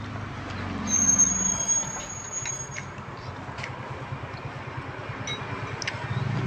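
Road traffic passing: a vehicle engine's low rumble swells about a second in, with a thin high whine for a couple of seconds. A few light clicks of chopsticks and a spoon against the bowls come through over it.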